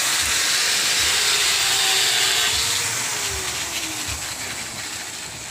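Small electric drive motor and gearbox of a homemade six-wheel RC truck chassis running as it drives across concrete, a steady hissing whir with a faint whine that rises and falls, fading after about three seconds.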